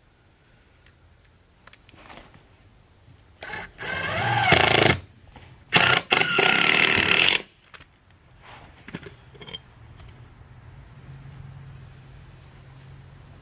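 Handheld power drill running in two bursts of about a second and a half each, the first with a rising motor whine; a few faint knocks follow.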